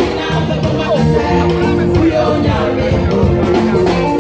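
A praise choir singing with live band accompaniment, keyboard and bass under the voices and a steady beat.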